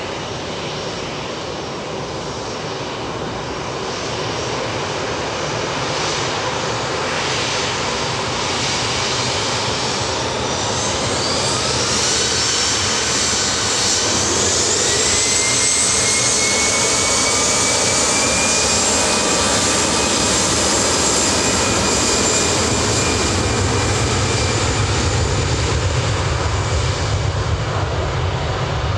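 Airbus A320-214's CFM56 turbofan engines spooling up for takeoff. A whine rises in pitch from about a third of the way in, then holds high and steady as the jet noise grows louder.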